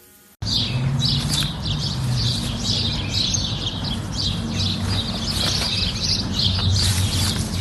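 Birds chirping: many quick high calls overlapping, over a low steady hum. It starts abruptly about half a second in.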